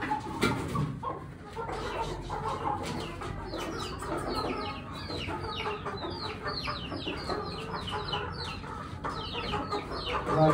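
Caged chickens calling together: a steady chatter of many short, high peeps that fall in pitch, over lower clucking.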